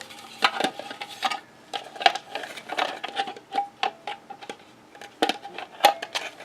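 Irregular clicks and knocks of hard plastic as a plastic bird bath is handled and fitted onto a birdcage.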